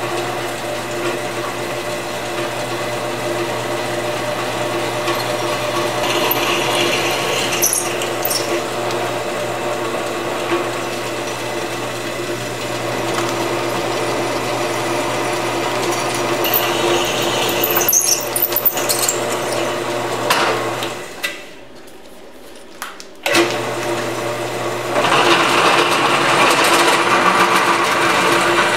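Drill press running, its twist bit cutting into a steel plate held in a drill press vise: a steady motor hum under the grinding of the cut. The sound drops out briefly about three-quarters of the way through, then returns with the cutting noise stronger near the end.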